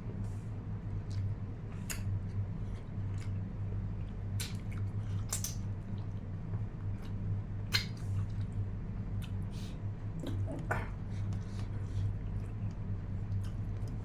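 A person eating a meal, chewing with scattered short mouth clicks and smacks, over a steady low hum.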